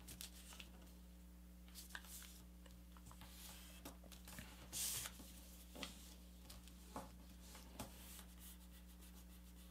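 Faint rustling and creasing of a sheet of paper being folded by hand, with a few soft ticks scattered through and one brief louder rustle about five seconds in, over a low steady hum.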